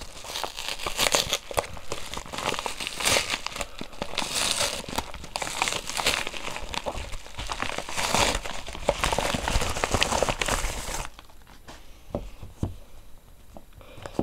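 Packaging being crinkled and torn open by hand to get at the smartwatch box. The crackling goes on steadily for most of the time, then about three seconds before the end it drops to quieter handling with a few small clicks.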